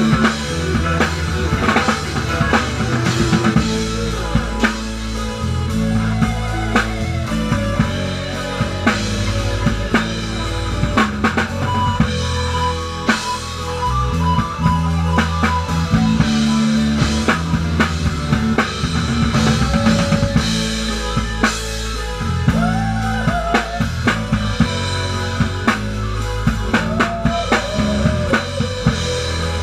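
Live rock band playing an instrumental passage. The drum kit, close by, is the loudest part, with a steady beat of kick, snare and cymbals over bass and keyboards. A lead instrument plays sustained notes that bend in pitch above it.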